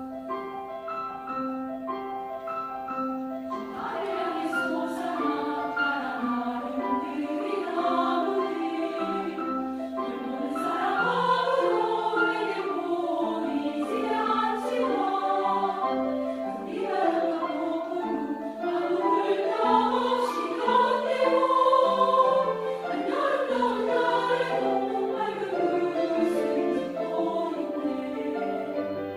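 Piano starts playing and, about four seconds in, a women's choir enters, singing in parts with piano accompaniment.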